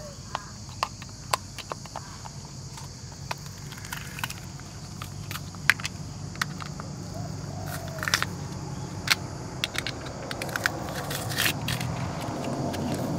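Hands working a cut-open oil filter canister and its pleated element in a cloth: scattered small clicks, ticks and scrapes of thin sheet metal. A low rumble swells near the end.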